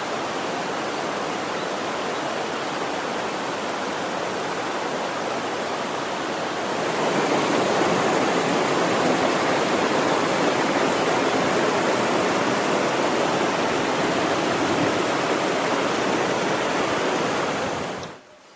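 Mountain stream rushing over rocks, a steady dense rush that gets louder about seven seconds in and cuts off abruptly near the end.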